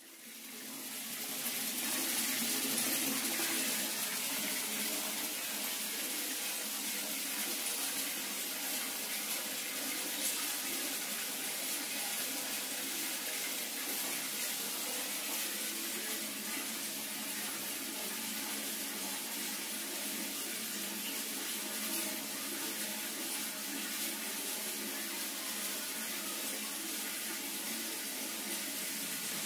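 Water tap running hard into a bathtub, a steady rushing gush of water filling the tub. It fades in over the first couple of seconds, then holds steady.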